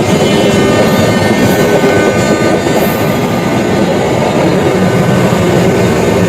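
Train passing close by: a loud, steady rumble of wheels on rail, with faint high steady tones over it in the first few seconds.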